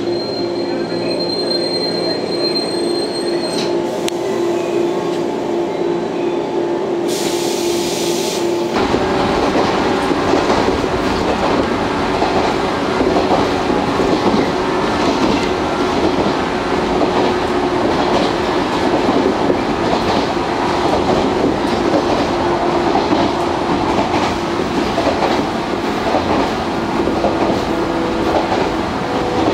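A JR West 113-series electric train standing at a platform with a steady hum. About nine seconds in, the sound cuts abruptly to inside its motor car running at speed: loud, steady traction-motor and wheel-on-rail running noise.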